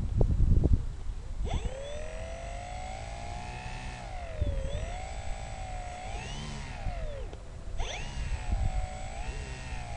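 Electric motor and propeller of a 1.4 m FMS Spitfire model being run up on the ground: a whine that jumps up in pitch about a second and a half in, wavers up and down as the throttle is worked, cuts out briefly near seven seconds and starts again. Wind buffets the microphone in the first second.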